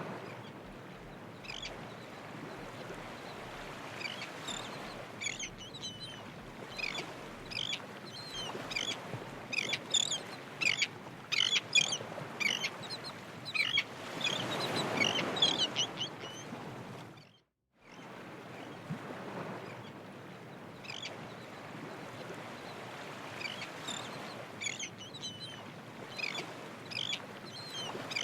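Many birds calling in short, repeated chirps and squawks over a steady background rush, with a louder swell of noise about halfway and a brief break in the sound a little later.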